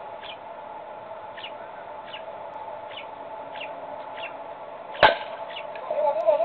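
A baseball bat hitting a pitched ball: one sharp crack about five seconds in. Players' shouts follow near the end.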